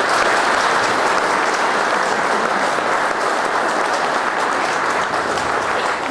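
Audience applauding, starting suddenly and holding steady throughout.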